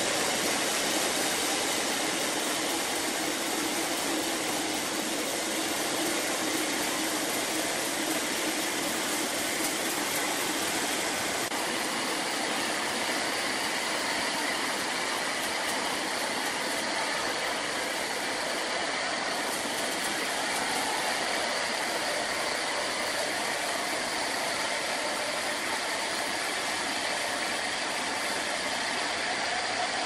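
Large horizontal band sawmill running steadily, its band blade cutting lengthwise through a huge log as the saw head travels along its rails.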